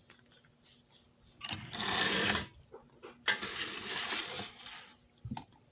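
Electric motor of a Marx Hoge 900 streamline toy locomotive, a custom-built replacement motor, whirring with its gears in two short runs, the first about a second long and the second about a second and a half.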